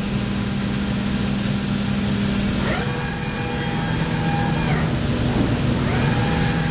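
5-axis CNC milling machine running with a steady hum and high constant tones; twice a whine rises, holds and falls away as the machine speeds up and slows down.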